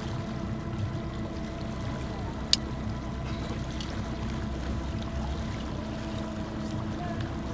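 Boat motor running steadily while towing a wooden raft, with water washing against the raft. A single sharp click about two and a half seconds in.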